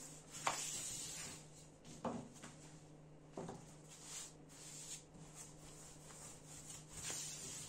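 Long thin wooden rolling pin rolling yufka dough on a floured table: soft rubbing with a few light knocks as it is pressed and rolled.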